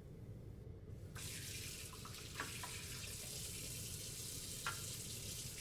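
Water running from a tap, turned on about a second in and then flowing steadily, for rinsing off a bath. There are a couple of faint ticks in the flow.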